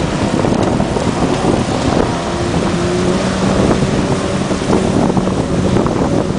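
Jet ski engines running at speed, a steady motor hum under a loud rush of water spray and wind buffeting the microphone.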